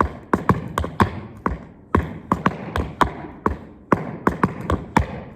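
Tap shoes striking a hard floor in a quick, syncopated run of sharp clicks, about four a second: a tap dancer dancing a time step.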